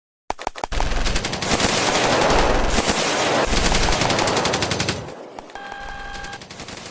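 Machine-gun fire sound effect: one long burst of rapid shots for about five seconds, then fading lower.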